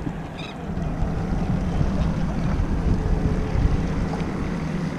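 Wind buffeting the microphone over a steady low hum, growing louder about a second in.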